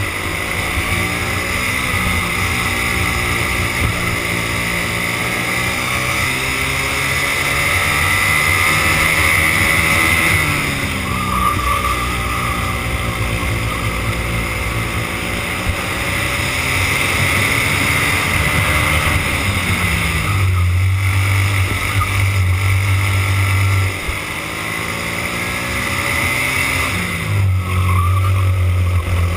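Racing kart engine heard from onboard at full race pace, its note climbing and falling as the kart accelerates and slows through corners. It drops sharply three times and rises again each time. A low rumble of wind and vibration on the microphone runs underneath.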